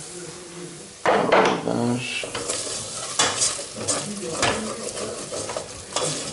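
A spoon stirring and scraping around a metal pot of vegetables sautéing in oil on low heat, a run of quick scrapes starting about a second in, over a faint sizzle.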